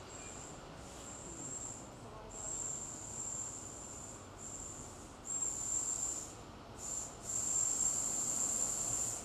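A high-pitched insect trill, steady in pitch, starting and stopping in stretches of about half a second to two seconds with short gaps, and growing louder in the second half.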